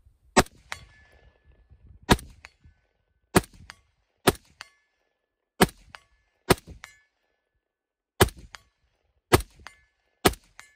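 Nine rifle shots from a 16-inch 5.56 AR-15, fired at an uneven pace one to two seconds apart. Each shot is followed a fraction of a second later by the fainter ring of a hit on a distant steel target.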